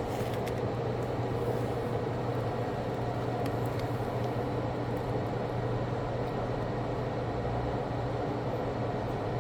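A steady hum and fan-like noise with a few faint clicks.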